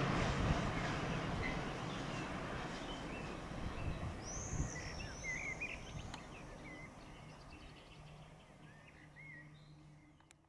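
Low rumble of a freight train that has just passed, dying away, with birds chirping and singing in short phrases over it. Everything fades out near the end.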